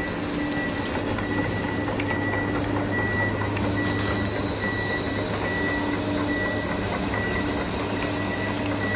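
Toy RC crawler excavator driving, its sound module playing a steady engine-like drone and a repeating warning beep, about one beep every two-thirds of a second, over the whir of its drive motors.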